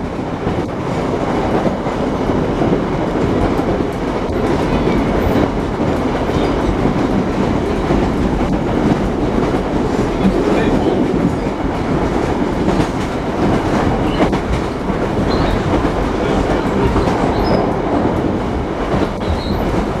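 Interior of a moving railway carriage: the steady rumble of the running train, with wheels clattering over the track and the coach rattling on a rough ride.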